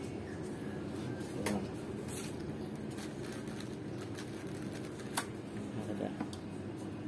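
Steady low rushing from a pot heating on the stove under an aluminium steamer tray, with a couple of faint light clicks, one about a second and a half in and one about five seconds in.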